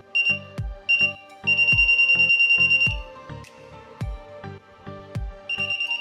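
Non-contact AC voltage detector pen beeping with a high, rapidly pulsing tone as its tip is held against a mains cable, the signal that it senses AC voltage in the cable. The beep comes in two short bursts, then about a second and a half, stops, and starts again near the end, over background music with a steady beat.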